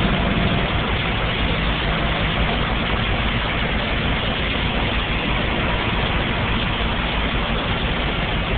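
Heavy tow truck's engine running steadily at idle, under a constant wash of noise.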